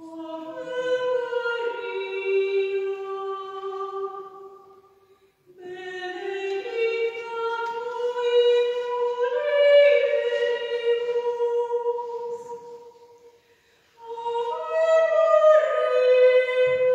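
Women's choir singing a cappella in sustained chords, in three phrases, each fading into a brief pause before the next.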